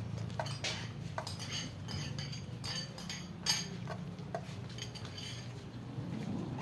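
Several cats and kittens eating rice from a shallow bowl: an irregular run of small clicks and smacks from chewing and from mouths knocking against the bowl, over a low steady hum.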